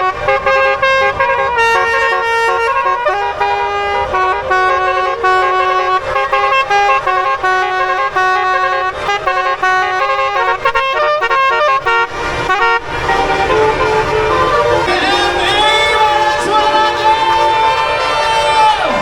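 Bus musical horns (telolet horns) playing a melody in stepped multi-tone notes. About thirteen seconds in, the tune changes to one with sliding, wavering pitches.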